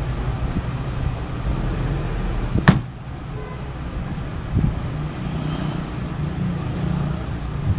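Mitsubishi Fuso Canter dump truck's diesel engine running steadily while the tipper bed is raised to dump its load. A single sharp bang about a third of the way in, after which the engine sound drops somewhat, and a duller thump a couple of seconds later.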